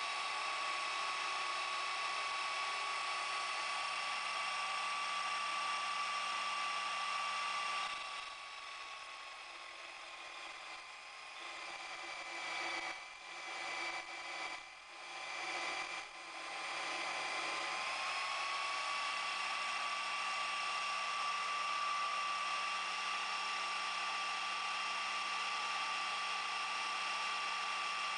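Sherline mini lathe running with a steady high motor whine. For several seconds midway the whine sags a little in pitch and drops in level, with a few brief dips, then settles back to its steady note.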